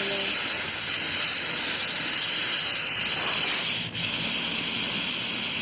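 Aerosol can of Lysol disinfectant spray hissing in a long steady blast onto slime glue, broken off for an instant just before 4 seconds in and then resumed.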